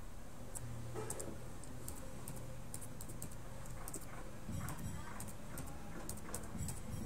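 Computer keyboard typing: an irregular run of keystroke clicks as text is entered.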